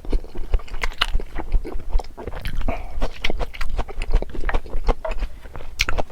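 Close-miked chewing of food, with many sharp, irregular crunches and wet clicks, several a second.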